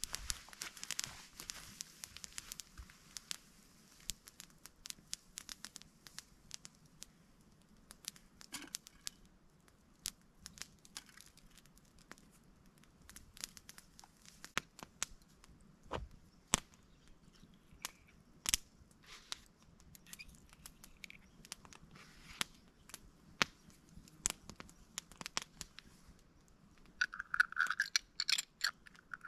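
Small wood campfire crackling quietly with irregular sharp pops and snaps. Near the end comes a short burst of scraping and tearing as a knife cuts food by hand.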